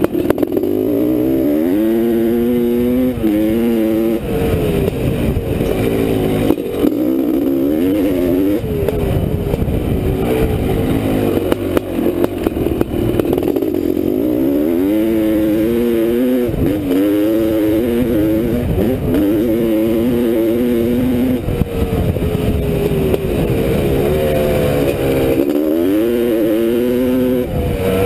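1985 Honda CR500's single-cylinder two-stroke engine under load, ridden off-road, its revs climbing and dropping over and over.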